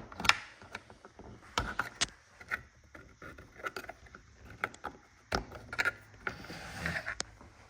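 Irregular clicks and knocks of a hand tool working at the shifter linkage bushings, with a short scraping rattle about seven seconds in.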